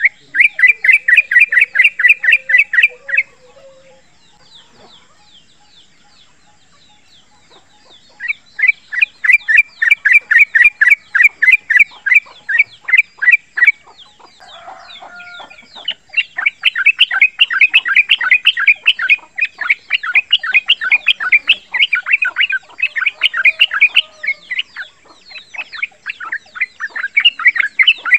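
Young male yellow-vented bulbul singing its rapid-fire chattering song of fast repeated notes, about six a second. It sings in three long runs, with a pause of several seconds after the first.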